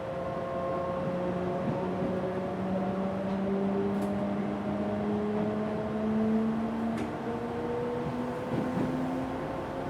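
Mitsubishi early GTO-thyristor VVVF inverter and traction motors of an Odakyu 1000-series electric train whining under power, several tones rising slowly in pitch as the train gathers speed, with a jump up in pitch near the end. Two sharp ticks about four and seven seconds in.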